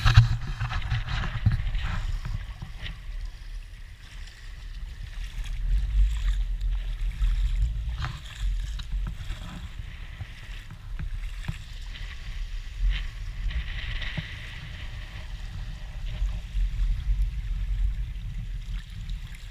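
Shallow sea water sloshing and gurgling around a camera held at the water's surface among rocks, with a steady low rumble and small splashes.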